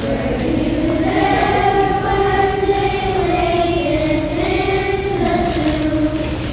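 Children's choir of third- and fourth-grade students singing a slow song together, the melody moving in long held notes.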